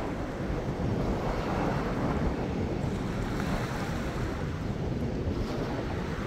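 Small ocean waves lapping and breaking over the edge of a rocky reef shelf, with wind noise on the microphone.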